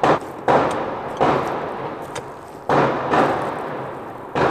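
Firecrackers going off outside, heard from indoors: six sharp bangs, about half a second to a second and a half apart, each trailing off in a long echo.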